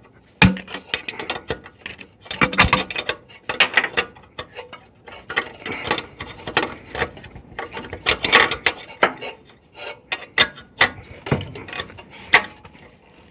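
Hand ratchet wrench clicking in short irregular runs as a fitting on a turbo coolant line is tightened, with odd clinks of the tool against metal.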